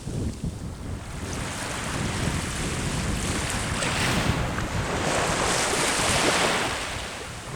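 Sea waves breaking and washing up the shore, the surf swelling in the middle and easing off near the end, with gusty wind rumbling on the microphone.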